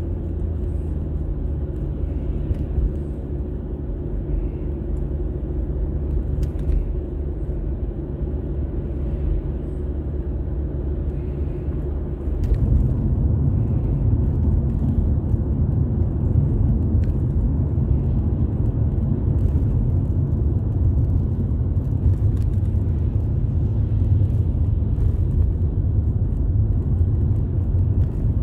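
A car driving, heard from inside: a steady low drone of engine and tyre noise, which steps up louder about twelve seconds in and then holds steady.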